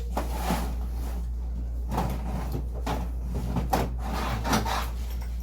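Rustling and light knocks of a tool bag being opened and its contents handled, in irregular bursts over a steady low hum.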